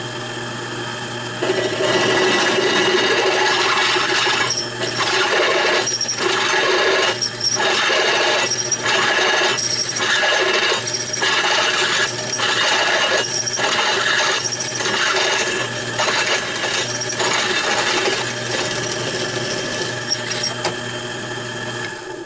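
Drill press running, its twist drill bit cutting into a steel plate to enlarge a hole: a steady motor hum under a harsh scraping cutting noise. The cutting noise breaks off briefly about once a second through the middle, and everything drops away right at the end.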